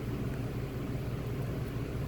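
A steady low mechanical hum, like a motor or fan running, unchanging throughout.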